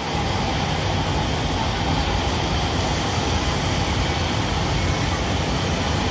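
Steady hum of an LRT Jabodebek train standing at the platform with its doors open, its rooftop air-conditioning and the station's noise running evenly.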